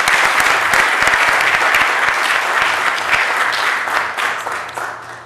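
Audience applauding, a dense crowd of hand claps that dies away over the last second or so.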